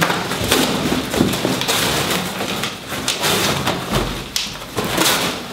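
Cardboard being ripped and crumpled by hand, a run of tearing and crackling with knocks against the floor.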